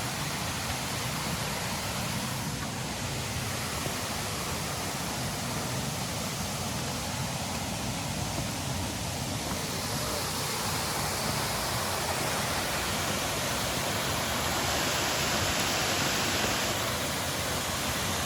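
Waterfall rushing: a steady hiss of falling water, a little louder about three-quarters of the way through.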